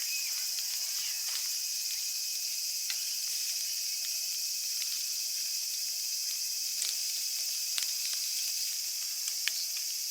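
A steady high chorus of evening cicadas (higurashi) and other insects, with scattered sharp pops and ticks of food sizzling on a grill.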